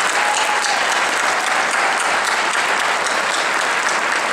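A hall full of people applauding steadily, with many overlapping claps.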